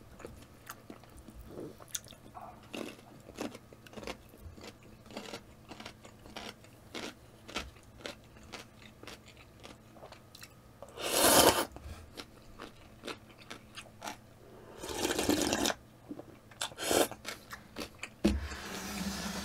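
A person eating instant ramen close to the microphone: steady chewing with many small wet clicks, and two loud noodle slurps about eleven and fifteen seconds in.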